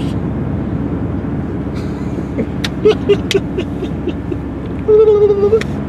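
Steady engine and road rumble inside a moving car's cabin. A few short clicks come around the middle, and a brief held voice sound near the end.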